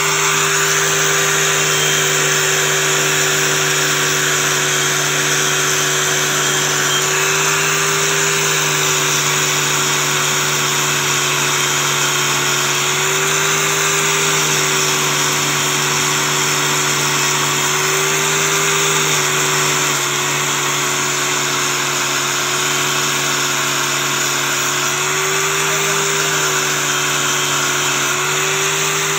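Angle grinder with a wire cup brush running steadily, scrubbing an aluminium forge-blower part held against the brush to clean it. The motor's pitch wavers slightly every few seconds as the load changes.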